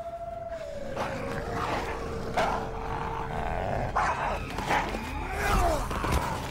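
Wolves snarling and growling in a pack fight, in sudden bursts that grow denser about four seconds in.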